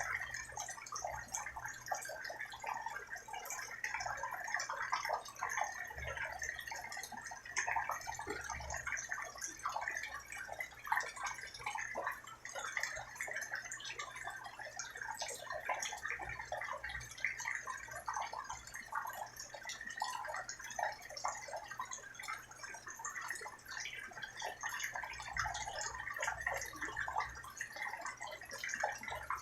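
Rain falling steadily: a dense, irregular patter of drops.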